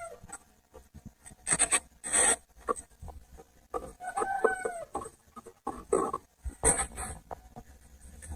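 Irregular scraping and tapping sounds, with a short animal call about four seconds in.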